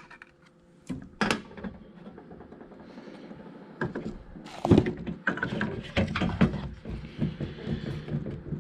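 A series of clicks and knocks from handling a loader's HVAC control panel, busiest and loudest about halfway through.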